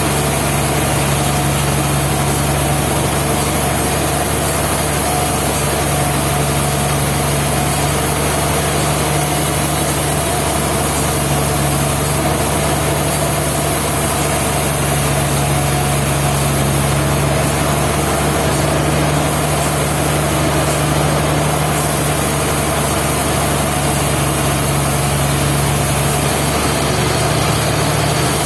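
Sawmill machinery running steadily, a constant engine-like drone with a strong low hum.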